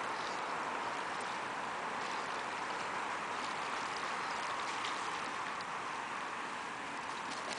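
Steady rushing background noise with scattered light splashes and ticks from Canada geese wading and stepping in shallow water at a gravel edge.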